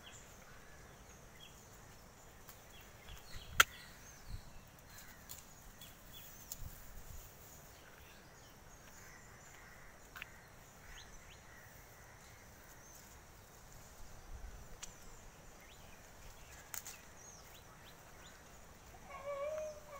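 Quiet farmyard background with scattered small clicks and rustles from goat kids moving among dry palm fronds and fodder. One sharp click comes about three and a half seconds in, and a short animal call near the end.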